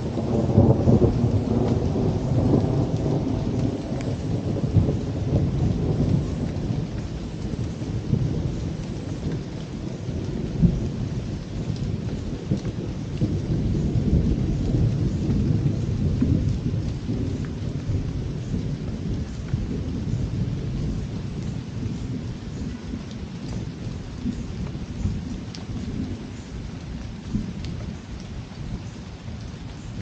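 Rolling thunder rumbling over steady rain, loudest in the first few seconds and again about halfway through, then dying away.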